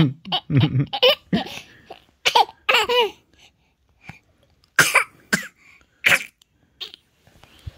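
Baby laughing in short, breathy bursts with high, bending pitch, then a few sharp, hissy bursts about five to six seconds in.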